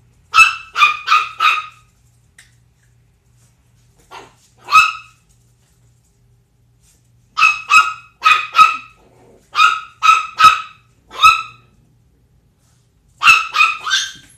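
Chihuahua puppy, 10 weeks old, barking in high-pitched yips, in quick runs of two to four with pauses of a few seconds between runs.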